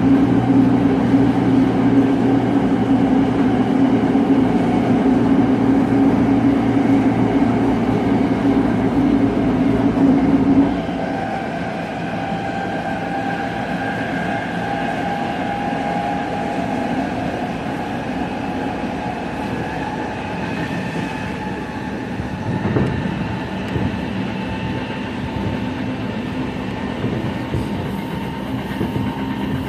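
Tokyo Metro 07 series electric train running at speed, heard from inside the car: traction motor and VVVF inverter hum over wheel-on-rail noise. A loud steady low hum cuts off abruptly about eleven seconds in, leaving quieter running with thin whining tones that drift slowly in pitch.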